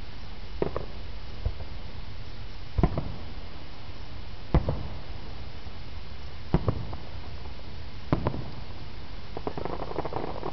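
Aerial fireworks shells bursting: a string of sharp booms every second and a half to two seconds, followed near the end by a brief spell of faint crackling.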